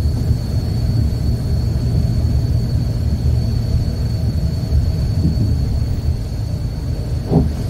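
Steady low rumble of a moving vehicle, engine and road noise heard while riding along a road, with one brief knock near the end.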